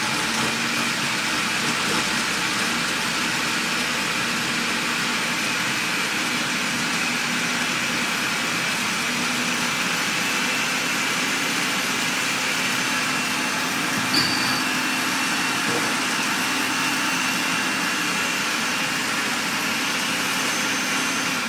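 Countertop food processor running steadily at full speed, chopping and grinding a mixture of pecans, oats and sticky dates for energy bars.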